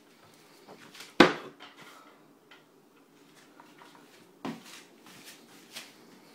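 Kitchen cupboard door knocking shut about a second in, followed by two lighter knocks and clicks.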